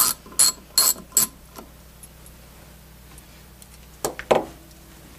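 Ratchet wrench clicking as it is swung back and forth to unscrew the sight glass retainer on a refrigerant gauge manifold, four sharp clicks about two and a half a second that then stop. Two light knocks follow about four seconds in as the aluminium manifold is put down on the bench.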